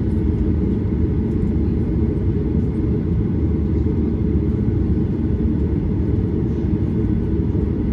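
Steady low rumble of a Ryanair Boeing 737's jet engines and airflow, heard from inside the passenger cabin.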